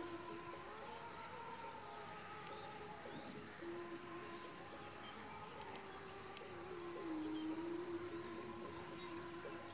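Insects chirring in a steady, continuous high chorus. Under it runs a faint low hum that wavers slightly in pitch and grows a little stronger a few seconds in.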